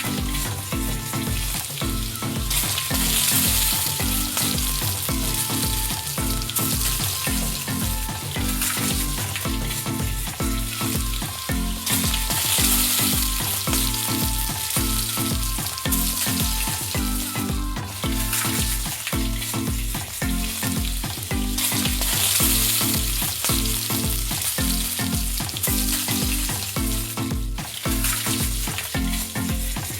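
Hot oil sizzling steadily as small puris fry in a miniature kadhai, with a repeating background music line underneath.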